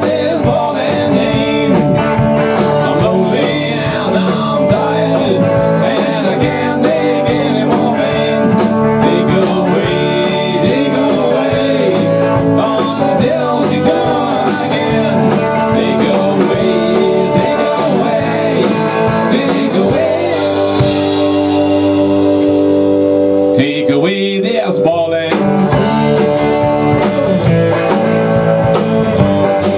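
Rock band playing an instrumental passage on two electric guitars, electric bass and drum kit.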